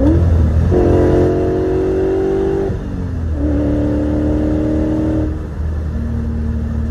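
BMW M60 V8 pulling hard under full throttle, heard from inside the cabin. The revs climb, dip at a gear shift about three seconds in, and climb again, then the throttle comes off and the engine settles to a steady cruise near the end.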